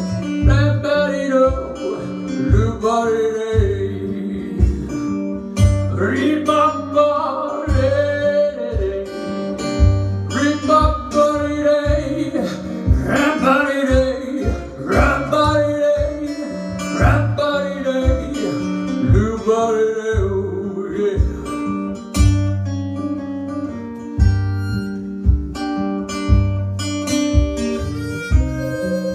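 Live acoustic music: acoustic guitar with a regular picked bass line under a melody.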